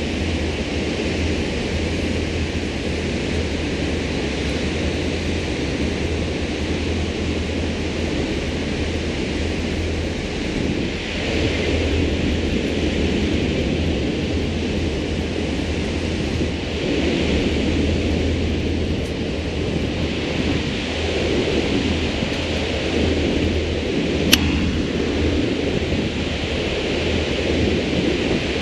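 Steady rushing of wind and water at the bow of a slow-moving cabin cruiser, swelling now and then, over the low drone of its Mercruiser 7.4 inboard engine. A single sharp click comes near the end.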